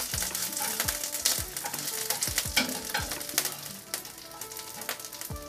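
Hairtail (beltfish) rolls sizzling in shallow oil in a nonstick wok, now fully cooked. The steady sizzle is broken by scattered sharp clicks of chopsticks tapping the pan as the pieces are pushed aside, and it quietens a little in the second half.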